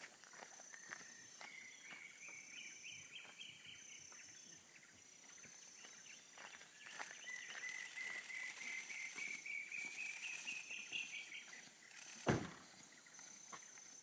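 Drongo-cuckoo singing twice, each song a long run of quick whistled notes climbing steadily in pitch. A pulsing high insect call repeats in the background, and a single sharp thump comes near the end.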